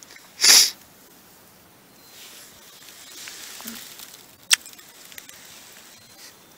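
Close rustling and handling noise against the microphone as a hand strokes a pony's coat while she feeds from a tub in hay: a short loud rustle about half a second in, a softer rustle around the middle, and a sharp click near the end.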